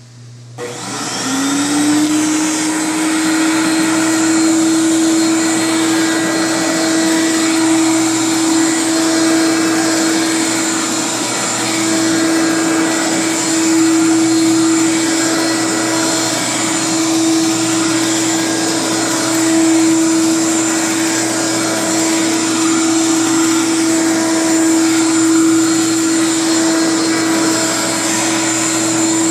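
Hoover Conquest upright vacuum cleaner switched on about half a second in. Its motor whines up to speed within a second, then runs steadily.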